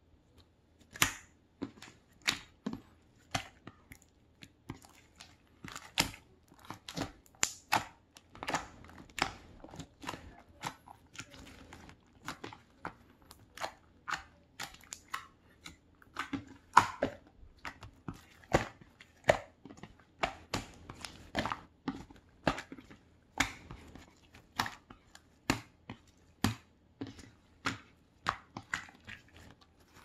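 Glossy slime pressed, poked and kneaded by hand, giving a run of sharp, sticky pops and clicks, irregular at about one or two a second, starting about a second in.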